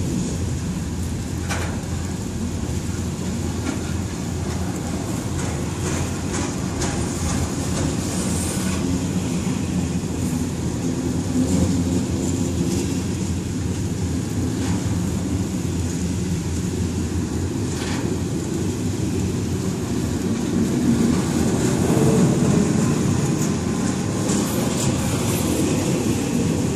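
Slow-moving double-stack intermodal container train rolling past: a steady rumble of steel wheels on the rails, with occasional clacks of wheels over rail joints.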